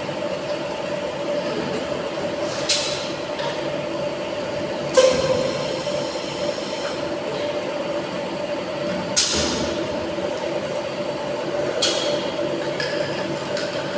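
Tilting-type air-jet bottle washing machine running with a steady hum, broken four times by short bursts of hiss; the second burst, about five seconds in, is the loudest and lasts about two seconds.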